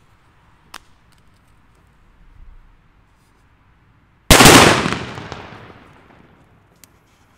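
A Bonbridge Hua Liang "Super Böller 3" flash-powder firecracker going off with one sharp bang about four seconds in, its echo fading over about two seconds.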